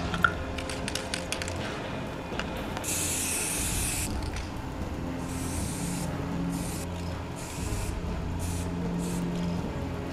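Aerosol spray paint cans hissing in bursts as a graffiti tag is sprayed on a wall: one long spray of about a second, then several shorter ones. A run of light clicks comes first, in the opening two seconds.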